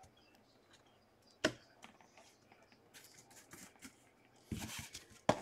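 Trading cards and cardboard card boxes being handled on a table: a sharp tap about one and a half seconds in, a few light clicks, then a short rustle and another tap near the end.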